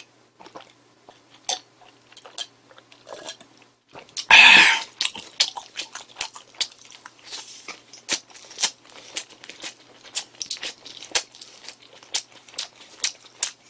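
Close-up eating sounds of fried chicken nuggets. After a few faint mouth sounds, a loud crunchy bite comes about four seconds in, followed by steady rapid crunching as the nugget is chewed.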